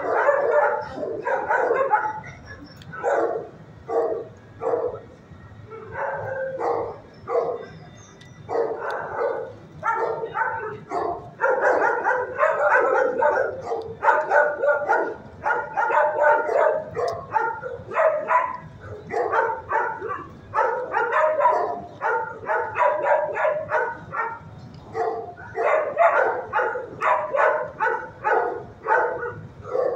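Dogs in a shelter kennel block barking almost without pause, bark after bark in quick runs.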